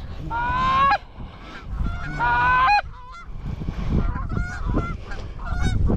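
Canada geese honking: two long, loud honks in the first three seconds, then a run of shorter, quicker honks, over a low wind rumble on the microphone.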